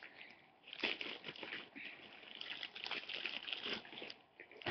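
Plastic packaging rustling and crinkling as items are handled, in faint irregular bursts that die down near the end.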